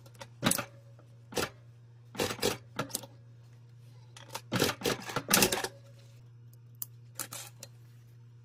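Fabric being handled and moved about at a sewing machine: irregular rustles and clicks, a few at a time, with a low steady hum underneath. The machine is not stitching.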